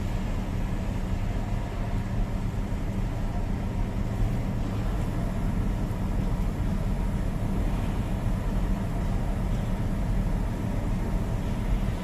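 Heavy vehicle's diesel engine running steadily, a low, even hum with no change in speed.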